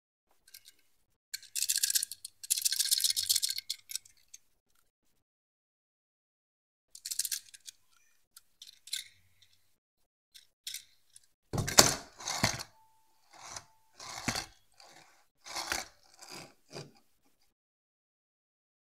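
Small die-cast toy car being handled: short bursts of light rattling and scraping, then, about halfway through, a run of louder knocks and scrapes as it is set down and pushed about on cardboard.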